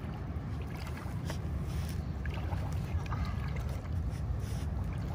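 Wind buffeting the microphone in a steady low rumble, with a few faint splashes of a person wading into shallow river water.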